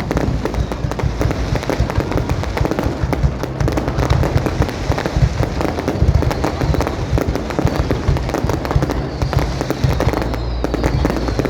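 Fireworks display: a dense, continuous volley of crackling and bangs from aerial fireworks, with no pause.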